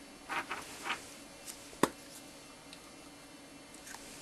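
Small handling sounds on a tabletop: a few soft rustles in the first second, then one short sharp click a little under two seconds in, over quiet room tone.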